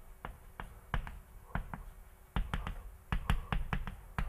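Chalk tapping and knocking against a blackboard during writing: a string of sharp, irregular clicks, a few a second, busier and louder in the second half.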